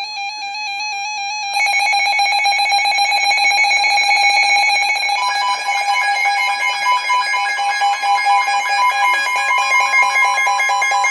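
Emergency Alert System attention signal: a loud, harsh electronic alarm tone that warbles rapidly. It grows fuller about a second and a half in, and a second, higher tone joins about five seconds in.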